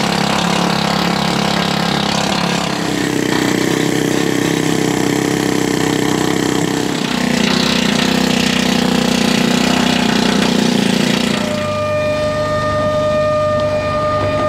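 Power tools cutting through the steel samson post base on a steel boat deck: a loud, harsh, continuous cutting noise whose pitch shifts a few times. A steady whine joins in about twelve seconds in.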